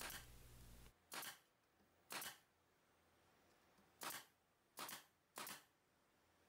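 Pneumatic brad nailer firing about six shots at uneven intervals, each brief and sharp, driving 1-inch brads through OSB backer board into wooden boards.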